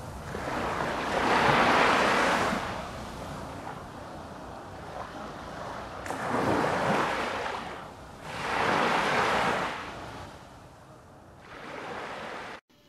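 Ocean surf: waves breaking and washing ashore in four slow swells that rise and fade, cutting off suddenly near the end.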